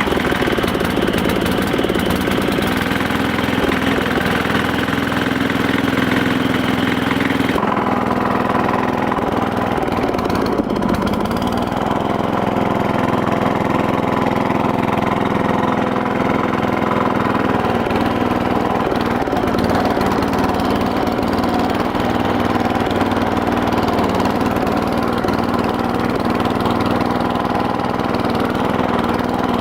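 Small lawn tractor engine running steadily at a constant speed. About eight seconds in its sound changes abruptly, losing its upper hiss.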